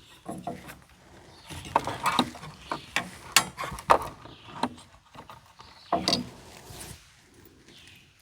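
Screwdriver and small screw clicking and scraping in short irregular strokes as a screw is fitted by hand on the refrigerator's igniter mounting.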